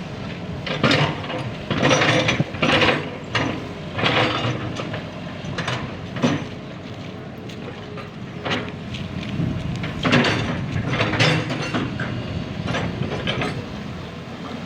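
Excavator at work clearing, its engine giving a steady low drone under about a dozen irregular harsh scraping and clanking bursts from the digging.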